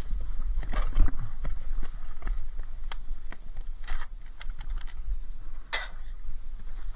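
Irregular knocks and clatter of scrap being rummaged through and handled in a skip, with one louder clatter near the end.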